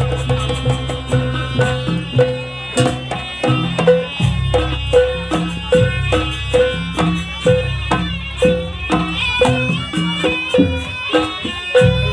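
Live Javanese Jaranan ensemble music: a reedy shawm (slompret) melody wavers and glides high over regular hand-drum strokes about two a second and a repeated ringing gong-chime note.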